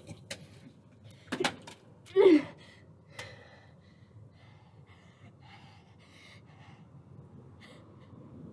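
A man gasping from the shock of cold slime poured over him: a few sharp clicks, a loud short cry falling in pitch about two seconds in, then faint breathing.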